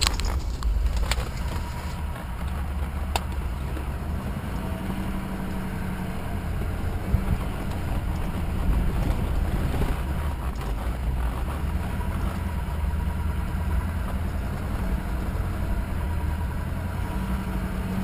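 Truck's engine and tyres running steadily on a dirt trail, heard from inside the cab as a constant low rumble. A few sharp rattles or knocks come in the first few seconds.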